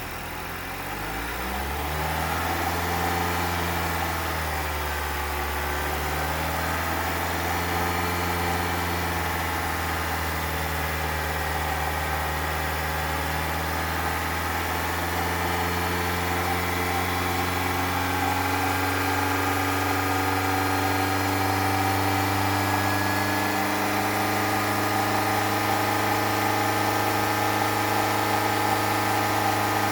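Honda ZR-V engine coming up to speed in maintenance mode and held running steadily, its pitch wavering for the first several seconds and then holding level. The engine sound covers an abnormal noise the owner is trying to record, which is heard only faintly under it.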